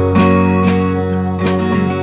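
Background music led by a strummed guitar, with chords struck a few times over sustained tones.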